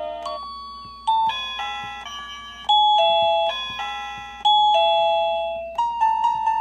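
Tektalk wireless doorbell's plug-in receiver playing an electronic chime tune: bell-like notes struck one after another, each ringing and fading, with a quicker run of notes starting near the end.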